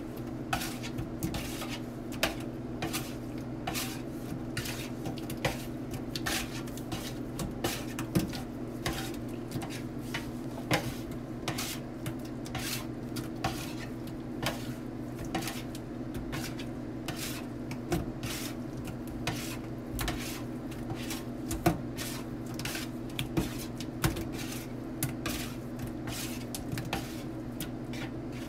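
A spatula scraping and clattering against a stainless steel sink basin as it turns fish fillets, in frequent irregular knocks, over a steady low hum.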